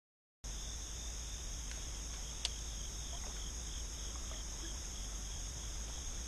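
Steady insect chorus, a continuous high-pitched chirring, with one faint click about two and a half seconds in.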